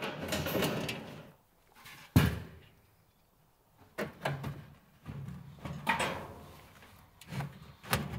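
Metal drum grill body lined with wire mesh being handled and set down on a wooden table. One sharp knock comes about two seconds in, followed by several softer knocks and scrapes.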